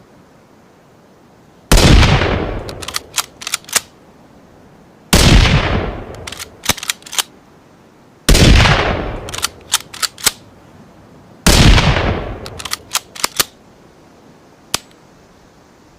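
Four rifle shots from a layered Ruger American rifle sound effect, about three seconds apart, each with a long fading tail. A quick run of three or four sharp clicks follows each shot, the bolt being worked, and a single click comes near the end.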